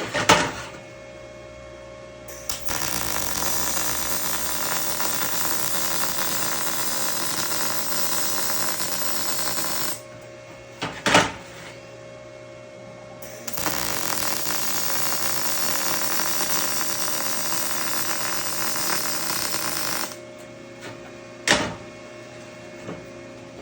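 MIG welding arc crackling steadily in two runs of about seven seconds each, with a steady hum in the pauses between them. Three sharp knocks come at the start, between the two welds and after the second.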